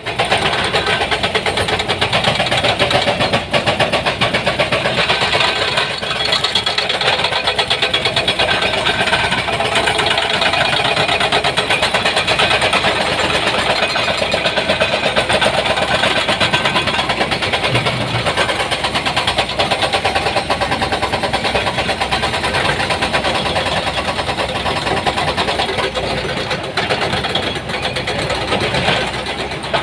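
Excavator's diesel engine running steadily and loudly.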